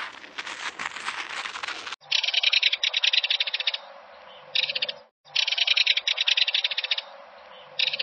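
A tortoise crunching a slice of apple for about two seconds, then a common kingfisher calling in high, rapid trills: two long runs of about a second and a half each, with short bursts between them.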